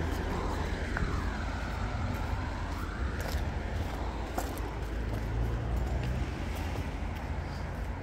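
Steady low rumble of street traffic, with a faint tone that dips and rises in pitch about a second in.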